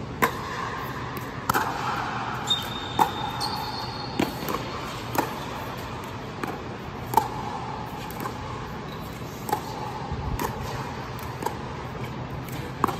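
Pickleball rally: sharp, echoing pops of paddles striking the hollow plastic ball, about one a second at an irregular pace, inside an inflated air-dome court, over a steady low hum.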